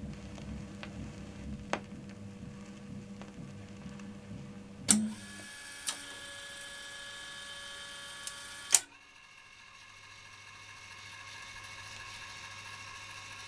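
Columbia JB-670's freshly overhauled mechanism running after the record has ended: a steady motor hum with scattered light clicks, then two sharp clacks about five and nine seconds in, each changing the hum. After the second clack it drops to a faint low hum.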